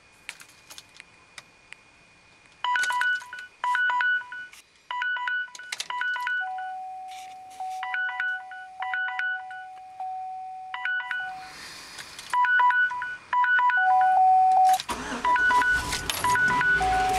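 Dashboard warning chimes of a Chevy Silverado with the key on: short electronic beeps in quick doubled pairs, with a few longer held tones between them. About fifteen seconds in, the truck's 5.3-litre V8 starts and runs, its first start on a newly installed and reset ECU.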